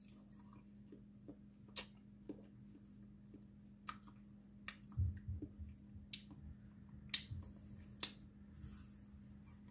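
Close mouth sounds of eating a frozen ice pop: scattered sharp clicks and crunches as the ice is bitten and chewed, with soft wet smacks, at irregular intervals. A faint steady hum sits underneath.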